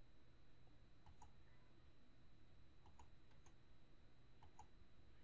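Faint computer mouse clicks, four or five, most of them doubled as the button is pressed and released, over a low steady hum and a thin high tone from the recording setup.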